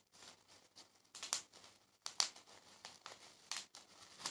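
Plastic bubble wrap crinkling as it is handled, in several irregular short bursts.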